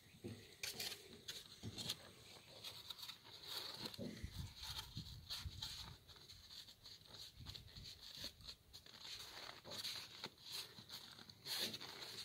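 Scattered, irregular rustling and light knocks of hands handling bandaging materials on a calf's leg, with a few low thuds about four to six seconds in.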